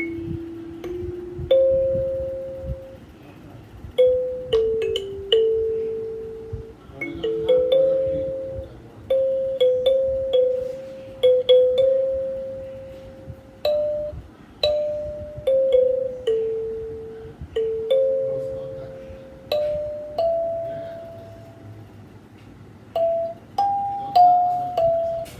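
Kalimba being plucked: a slow melody of single ringing notes, each struck sharply and fading away, sometimes two notes sounding together, climbing higher near the end.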